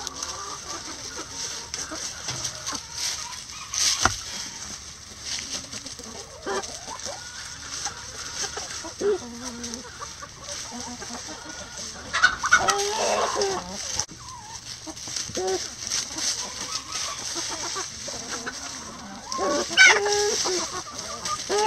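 Backyard chicken flock clucking and calling, with two louder stretches of calls about halfway through and near the end, amid light crackling of dry leaves as the birds scratch.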